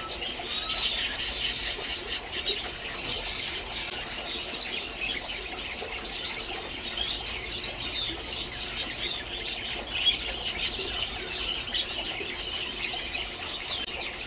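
Many small caged finches chirping and squeaking at once, a dense high-pitched chatter with a flurry of rapid calls near the start.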